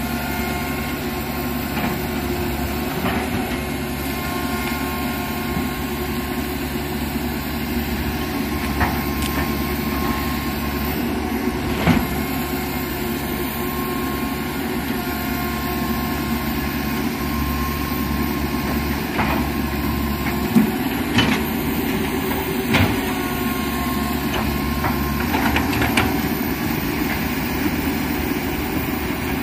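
Komatsu PC195 hydraulic excavator's diesel engine running steadily while the machine digs, with a few sharp knocks, the loudest about twelve seconds in and several more between about twenty and twenty-three seconds in.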